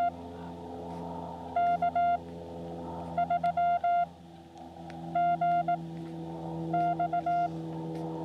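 Morse code (CW) tones from a Xiegu X6100 portable ham radio: four short groups of dits and dahs at one steady pitch, about a second and a half apart, over a faint steady hum.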